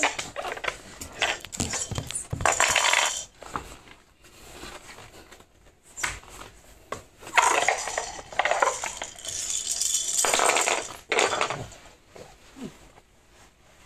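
Hands slapping and patting on a polished wooden floor in quick repeated strikes, in a spell near the start and a longer one about halfway through.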